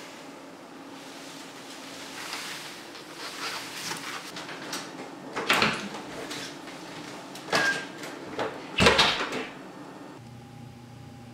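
A house's front door being unlatched, opened and shut: a few sharp knocks and rattles, the loudest about nine seconds in as the door closes.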